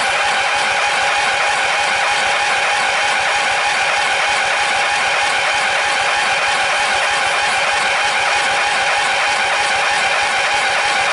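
Riding lawn mower engine cranked steadily by its electric starter while starting fluid is sprayed into the intake, turning over without catching. The mower needs ether to start because its choke lever is broken.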